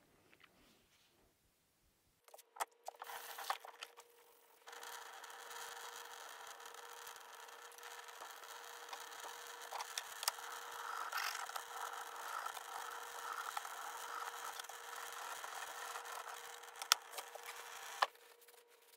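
Tap water running steadily from a faucet into a utility sink while a bolt is rinsed under it. A few knocks come first; the water starts about five seconds in and cuts off suddenly near the end, just after a couple of sharp clicks.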